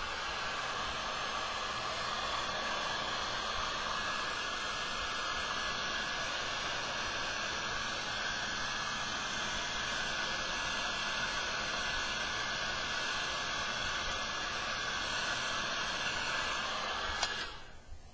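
A powerful heat gun blowing hot air, a steady loud whooshing hiss. It is switched off abruptly near the end.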